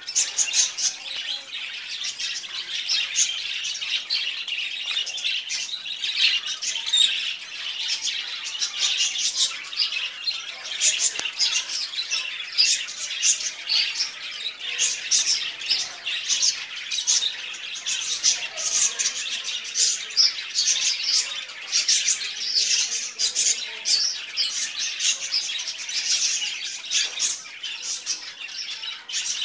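Many small birds chirping at once, short high calls overlapping several times a second without a break.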